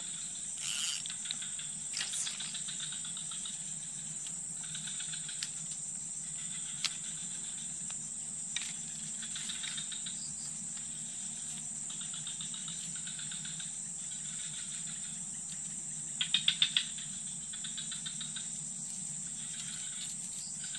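Insects calling: a steady high-pitched whine with a fast pulsing trill that comes and goes, loudest about three-quarters of the way through. A few light clicks now and then.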